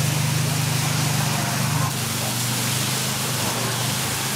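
Batter sizzling and hissing in margarine on a hot takoyaki pan, over a steady low mechanical hum.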